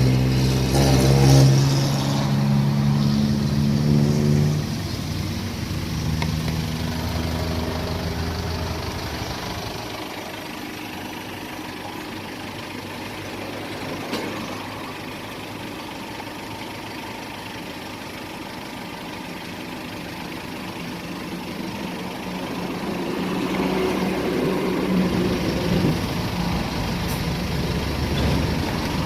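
Street traffic: a vehicle engine running close by is loud for the first few seconds and fades away by about ten seconds in. Another engine comes nearer again toward the end.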